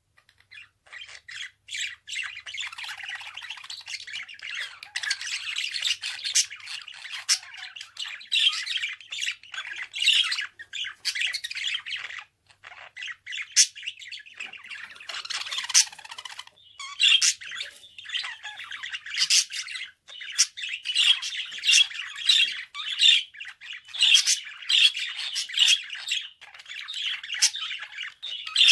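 Pet budgerigar warbling and chattering in a fast, continuous stream, mixed with sharp squawks and clicks; it starts about a second in and breaks off briefly twice midway.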